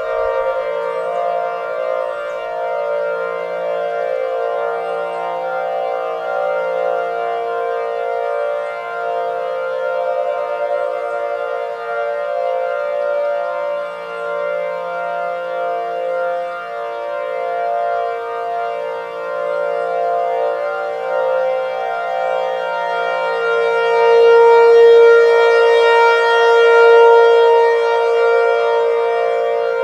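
Siren synth built from outdoor warning siren recordings (a Thunderbolt and a T-128/2T22 combination), layered into a steady chord of many held tones. It swells louder about 24 seconds in, then eases back near the end.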